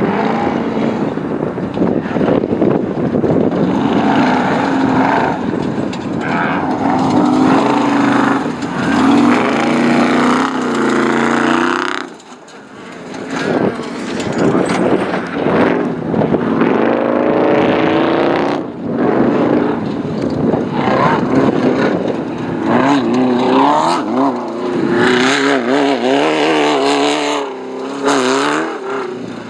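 Off-road race vehicle engine running hard, its pitch rising and falling with the throttle; the sound drops away briefly about twelve seconds in.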